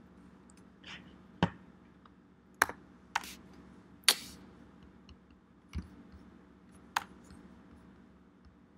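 Scattered single keystrokes on a computer keyboard: about seven separate key clicks, spaced irregularly a second or so apart, over a faint steady hum.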